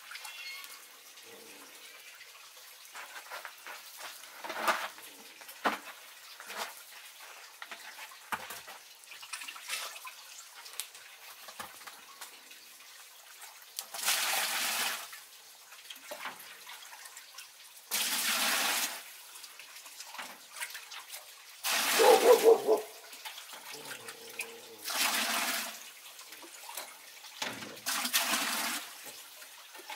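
Water poured from a plastic jug into the metal pot on top of a wood-fired rice-wine still, in five splashing pours about every three to four seconds; the one a little past the middle is the loudest. Light knocks and clatter come before the pours.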